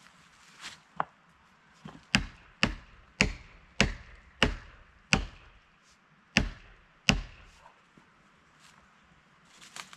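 A felling wedge driven into the cut of an ash tree with an axe: a run of sharp, separate strikes, about every half second at first, then spacing out and stopping near the end.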